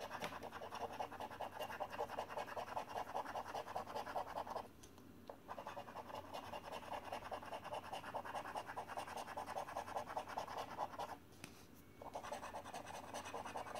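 A £2 coin scraping the scratch-off coating from a paper scratchcard in rapid back-and-forth strokes, stopping briefly twice.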